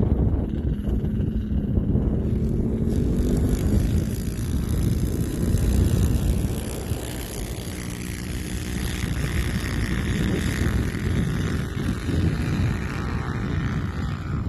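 Minibike engines running hard, one rising in pitch over the first few seconds, with wind rumbling on the microphone.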